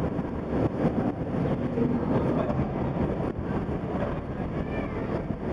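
Steady, low rumbling background noise of a concrete parking garage.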